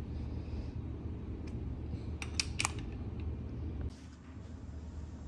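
A few short, light clicks of metal parts and tools being handled on an engine, three in quick succession about two and a half seconds in, over a steady low hum that drops away near the end.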